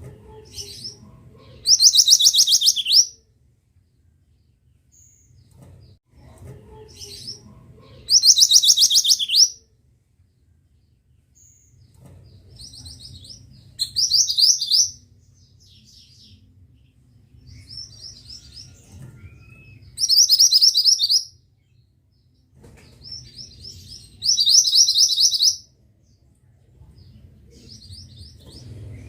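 Mantenan (pied bushchat) singing a short, fast, high trill, repeated about every five to six seconds, with soft chirps between the phrases.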